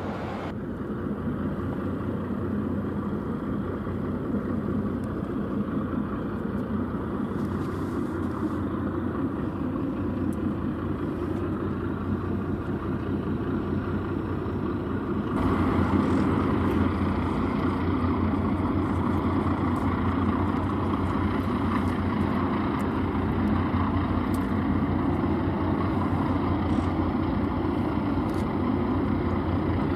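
Steady low drone of the diesel engines of a passing RORO car carrier and its tugboats, with an even low hum. It steps up louder about halfway through.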